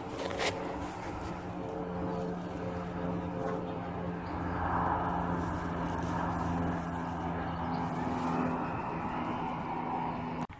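Steady distant engine drone with a low hum, growing louder through the middle and cutting off suddenly near the end.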